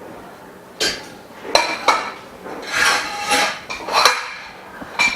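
Frame bars of a dust-free room frame knocking and clinking together as they are fitted and tightened, a series of sharp clinks, some with a short ring.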